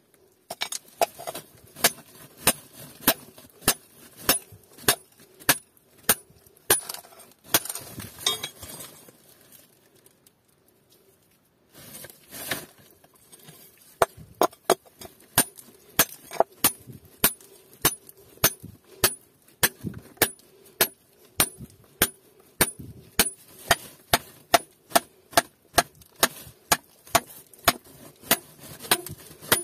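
Hammer striking a steel rebar used as a chisel against rock, chiselling ore out of the rock face: sharp metallic clinks about two a second, stopping for a few seconds near the middle and then resuming.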